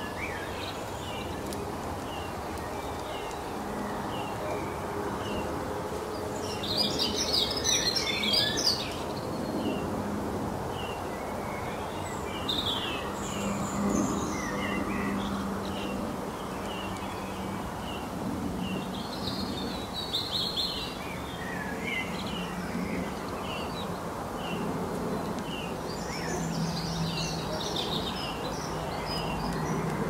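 Garden birdsong from several birds: a short chirp repeated about once a second, broken by bursts of fuller, more complex song, over a steady low background hum.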